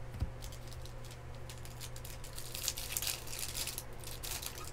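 Baseball trading cards sliding and flicking against each other as a stack is flipped through by hand: a run of short papery swishes, busiest about halfway through. A faint steady low hum runs underneath.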